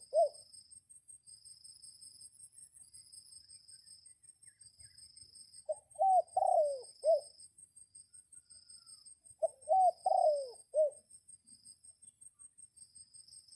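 A dove cooing in short phrases of several quick, falling coos, the end of one phrase at the start and two more phrases about six and nine and a half seconds in. Insects chirr steadily and faintly, high-pitched, throughout.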